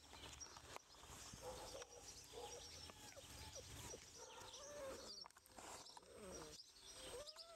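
Rough collie puppies making faint whines and yips as they play, with small birds chirping in the background.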